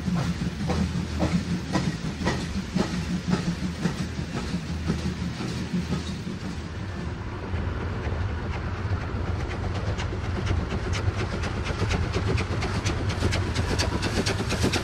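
DB class 50 two-cylinder 2-10-0 steam locomotive working a freight train: regular beats about two or three a second over a steady rumble and steam hiss. In the second half they give way to a quicker clatter of wheels over rail joints.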